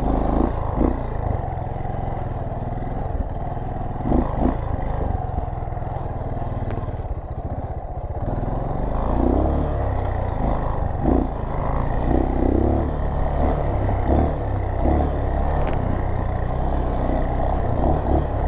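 Four-stroke dirt bike running along a sandy trail, its engine rumble mixed with wind on the microphone, and a series of knocks and rattles as it rides over bumps.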